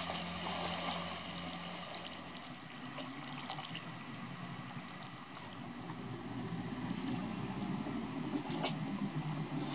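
A small boat's engine running at low throttle, its steady hum fading in the first couple of seconds, with water lapping and gurgling around the hull as the boat glides in to the shore, and a few faint knocks.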